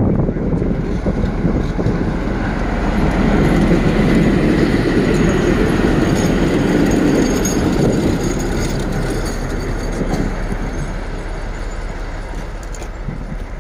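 PKP SU45 diesel-electric locomotive passing close by with its diesel engine running and its wheels rolling over the rails. The rumble swells as the locomotive goes past, loudest about midway, and eases off near the end.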